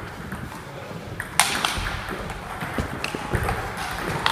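Table tennis rally: the ball clicking sharply off rackets and the table, a few separate hits, the loudest a little over a second in.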